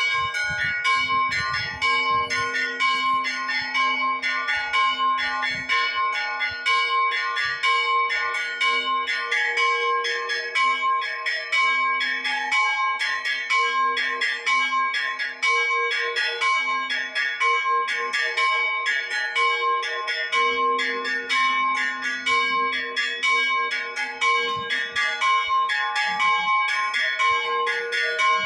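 Church bells ringing a continuous peal: several bells of different pitch struck in a fast, steady rhythm, their tones ringing on and overlapping.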